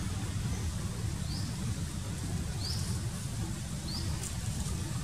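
Steady low outdoor rumble with short, high, rising chirps repeating about once every second or so.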